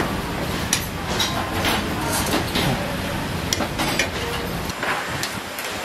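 Hot deep-fryer oil sizzling around slabs of handmade fish cake, with frequent sharp pops and clicks as the oil spatters and metal tongs touch the steel draining rack. A low steady hum runs underneath.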